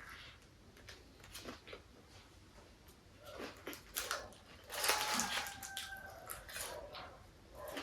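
Dogs barking outside, heard through the room, loudest about five seconds in with a drawn-out bark. Short crunching and chewing sounds of food come from close by.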